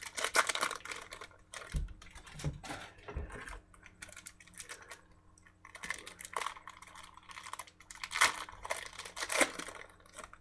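Football card packs being torn open and handled: irregular crinkling and crackling of the pack wrappers and cards, with a few soft knocks and a quieter stretch in the middle.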